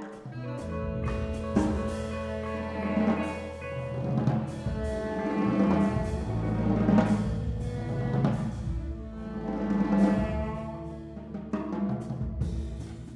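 A live contemporary ensemble playing: drums strike repeatedly over sustained low bass notes and held pitched chords.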